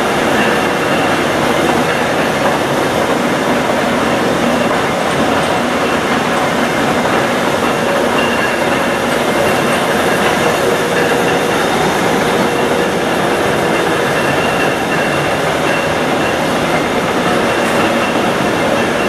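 Monarch 46-inch engine lathe running with its 28-inch four-jaw chuck spinning: the 30-horsepower drive and headstock give a steady mechanical rumble and rattle, with a faint steady whine through it.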